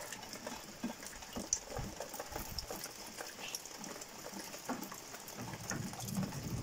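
Light rain pattering, with scattered drips and ticks over a faint hiss. A low rumble builds near the end.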